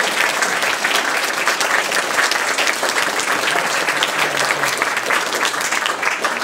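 A crowd applauding: many hands clapping in a dense, steady patter that begins to die down at the very end.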